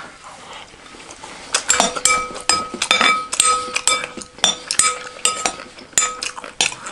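A metal spoon clinking and scraping against a glass bowl, each tap setting the bowl ringing with a clear two-note tone. The taps come in quick runs, starting about a second and a half in.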